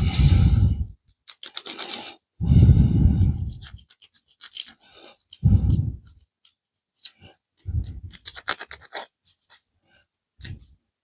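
Close-up scratching and clicking of small plastic model-kit parts and tweezers being handled on a workbench, with several dull low bumps in between.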